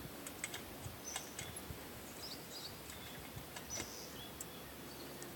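Quiet outdoor background with faint, scattered bird chirps and a few small clicks.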